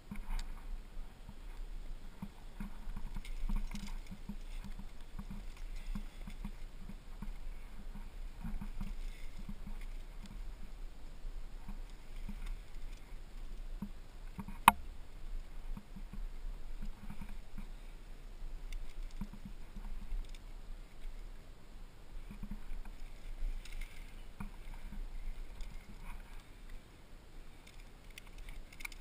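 Movement noise from a climber on a granite slab: scuffs, rustles and soft knocks over a steady low rumble on the microphone, with one sharp click about 15 seconds in.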